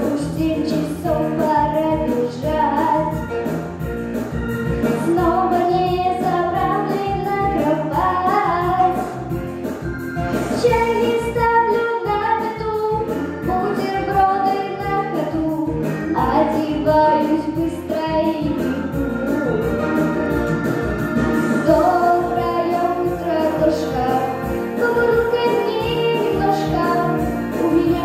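A young girl singing into a microphone over a backing track with a steady beat.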